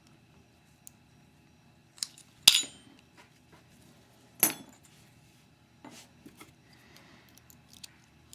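Small metal parts and tools clinking and clicking as a Mauer DT1 pin-tumbler lock is taken apart. There are a few sharp clinks, the loudest about two and a half seconds in and another at about four and a half seconds, with lighter ticks around them.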